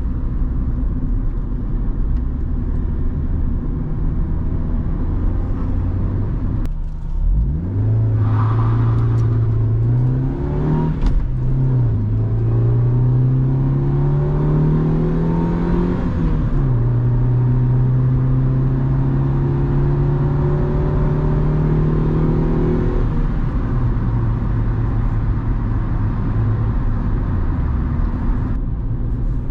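Honda Civic's 1.4-litre four-cylinder petrol engine heard from inside the cabin while driving, with steady road and tyre noise. The engine note climbs under acceleration and drops back at each upshift, twice, then holds steady while cruising before easing off in the last few seconds.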